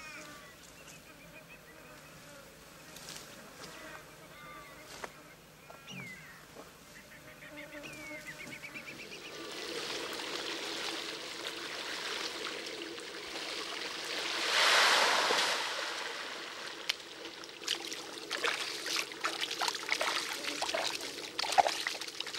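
Birds calling in the first few seconds, then shallow water: a splash that swells and fades over about a second and a half near the middle, as a throw net is cast, followed by a run of small splashes and drips.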